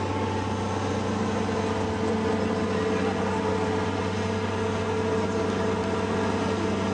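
Heavy-haul truck's diesel engine running with a steady drone at low, unchanging revs as it slowly pulls an oversize load on a multi-axle trailer.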